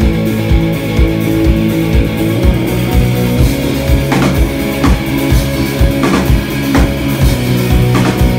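Live rock band playing an instrumental passage: a Telecaster-style electric guitar holds amplified chords over a drum kit's steady kick-drum beat. Sharper snare or cymbal hits join about halfway through.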